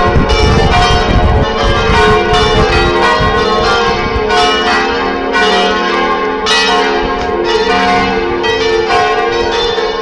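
Parish church bells ringing the midday peal: several bells struck in quick, continuous succession, their tones overlapping and ringing on. A low rumble sits under the bells for about the first second and a half.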